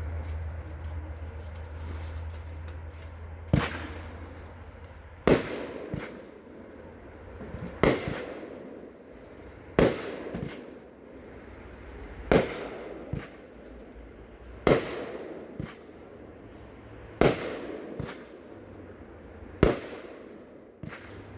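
Luck of the Irish consumer fireworks cake firing its shots. A loud bang comes about every two and a half seconds, eight in all, starting a few seconds in, and most are followed by a smaller pop.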